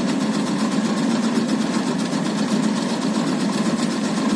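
Motorised tobacco-leaf cutting machine running steadily, with a fast, even rhythm of several strokes a second.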